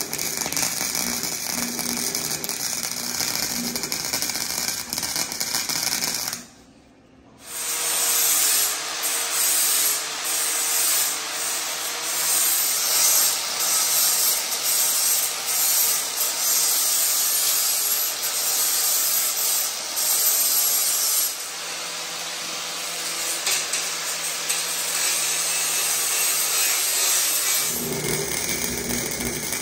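Arc welder crackling steadily as it lays a bead on a steel axle joint, a pass that leaves slag. It stops for about a second some six or seven seconds in, then runs on with an uneven crackle.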